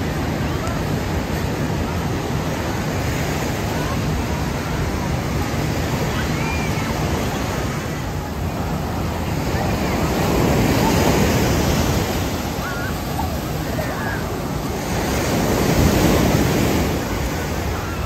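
Ocean surf washing onto a sandy beach: a steady rushing noise that swells louder twice, about ten and sixteen seconds in, as waves break.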